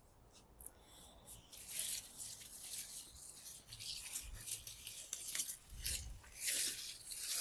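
Beetroot plants being pulled up by hand from a garden bed: leaves rustling and tearing, with soil scraping and a few soft thuds.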